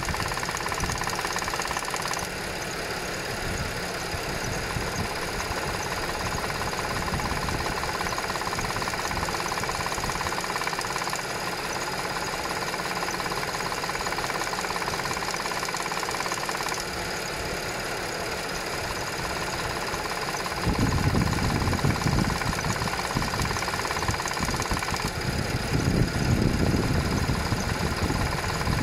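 Audi 3.0 TFSI supercharged V6 running cold with a knocking rattle from the top of the engine, which the owner takes for the upper driver's side cam chain tensioner. A louder, deeper rumble comes in about two-thirds of the way through.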